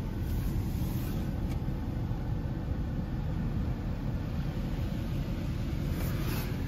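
Mark VII automatic car wash heard from inside the car: a steady low rumble of the wash machinery, with foam and water spraying onto the glass, and short hissing sprays about half a second in and again near the end.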